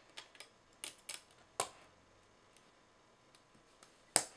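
Plastic Snap Circuits parts clicking and tapping as they are handled and pressed onto a clear plastic base grid: a scatter of light, irregular clicks, the sharpest about four seconds in.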